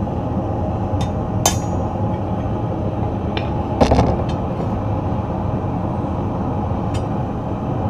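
Steady roar of a gas forge's burner, with a few sharp metallic clinks of a steel bar knocking against a steel anvil; the loudest clinks come in a quick cluster about four seconds in.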